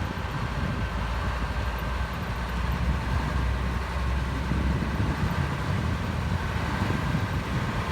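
Diesel engine of a DZ-122B motor grader running steadily, a low even rumble.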